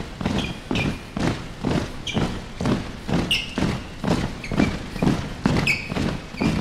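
Dancers' shoes stomping and squeaking on a stage floor: a quick run of thumps, about three a second, with short high-pitched shoe squeaks among them.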